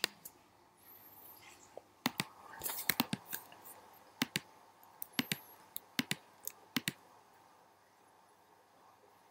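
Computer clicks, sharp and irregular, about fifteen of them in small groups, with the last around seven seconds in.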